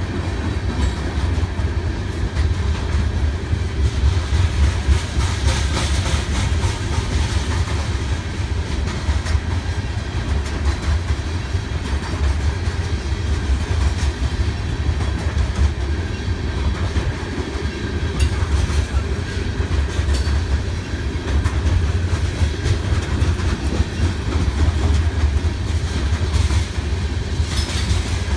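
Coal cars of a BNSF freight train rolling steadily past, with a continuous low rumble and the wheels clicking over the rails.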